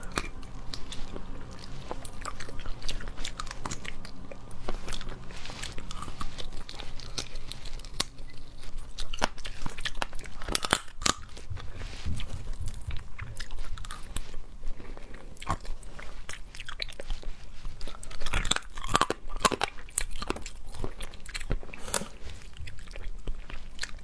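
Close-miked biting and chewing of spiced crab claws: shell crunching and cracking between the teeth with wet chewing, in irregular sharp cracks. The loudest cracks come about eleven seconds in and again around eighteen to nineteen seconds in.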